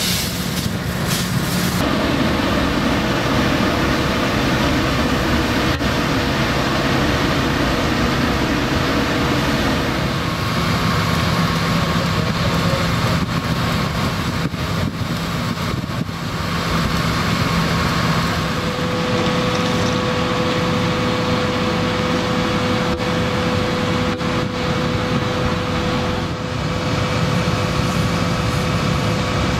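Large gas jet flame from a fire-training simulator and the water spray of hollow-jet hose nozzles together make a loud, steady rushing noise. A steady engine hum runs underneath.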